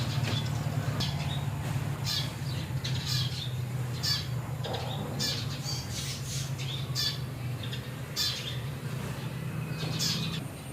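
Short, high-pitched squawking calls from an animal, about two a second at uneven spacing, over a steady low hum.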